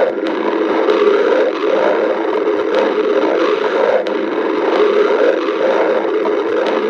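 Stomach growling from hunger: a steady, unbroken rumbling.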